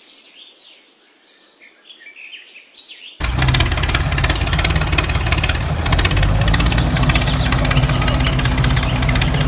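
Birds chirping softly, then about three seconds in a tractor engine starts up abruptly and runs loud and steady with a rapid chugging beat. Birds keep chirping over the engine.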